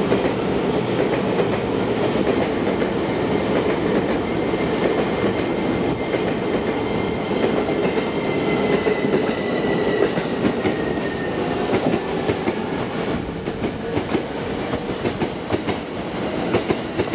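JR 251 series electric train passing through the station at speed: a steady rumble and rattle of wheels on rail, with a faint falling whine through the middle. In the last few seconds, as the end of the train goes by, the rumble thins to separate clacks of wheels over the rail joints.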